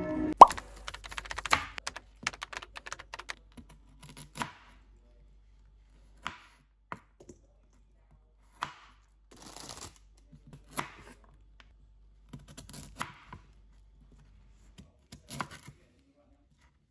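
Chef's knife slicing Brussels sprouts on a wooden cutting board. A quick run of crisp cuts comes first, then single knife taps on the board every second or two, with a short rustle of loose leaves.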